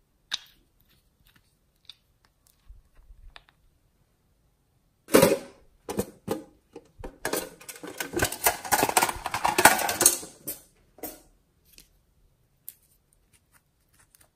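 Small plastic containers handled and opened by hand. There is a sharp click just after the start and a few light ticks, then about six seconds of dense crackling clicks and rattles, the loudest part. A few more clicks come near the end.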